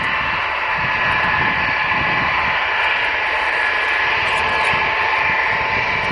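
Ilyushin Il-76's four turbofan engines running with a steady high whine over a wide rush of jet noise.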